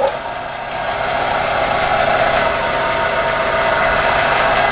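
Jet GHB-1340A gear-head lathe starting up in forward at low speed: the headstock gear train comes up over about a second and then runs steadily, a whirring hum with a steady whine.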